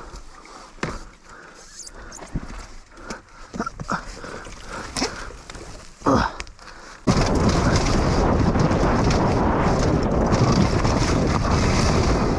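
Enduro dirt bike ridden down a rough forest trail: at first quiet, with knocks and rattles of the bike over bumps. About seven seconds in, a sudden loud, steady rushing noise takes over and masks everything else.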